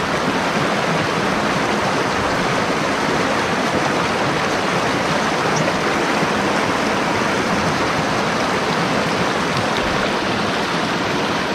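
Mountain stream running over rocks: a loud, steady, even wash of water that does not change.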